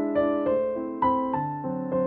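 Background music: a piano playing a steady run of notes, about four a second, each struck and fading.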